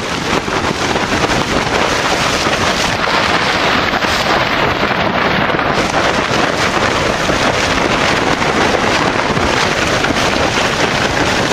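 Strong snowstorm wind blowing steadily and loudly, buffeting the microphone.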